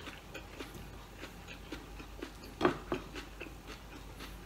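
Close-up mouth sounds of a person eating a glass-noodle salad: wet chewing and lip smacks, a steady run of small clicks with one louder smack a little past halfway.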